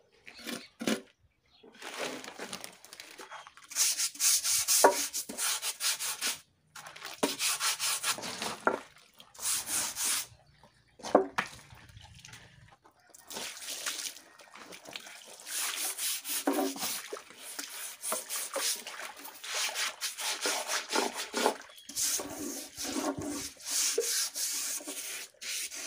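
Repeated rubbing and scraping strokes by hand on the fresh, wet cement of a moulded washtub, going in clusters with a quieter pause a little past the middle.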